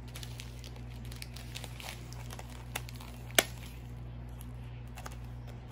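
Plastic packaging of a diamond painting kit crinkling as it is handled and pulled at, hard to get open, with one sharp click about three and a half seconds in. A steady low hum runs underneath.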